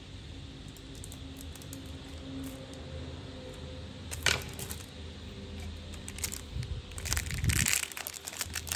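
Zippo lighter being handled: a single sharp metallic click about four seconds in, then a quick flurry of clicks and rustling near the end, over a low steady hum.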